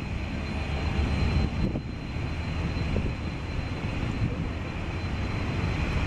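Bombardier Learjet 31A's twin Garrett TFE731 turbofans running at power as the jet rolls along the runway on its takeoff run: a steady jet rumble with a thin high whine held throughout.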